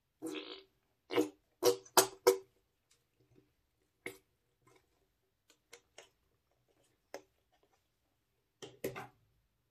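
Squeeze tube of thick green liquid squirting onto slime, with short wet squelches and sputtering air pops. Four loud pops come quickly one after another about a second in, then fainter ones scattered, and a close pair near the end.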